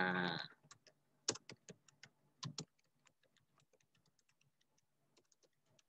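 Typing on a computer keyboard: a run of irregular key clicks, louder in the first few seconds and fainter after that. A drawn-out vowel from a voice ends about half a second in.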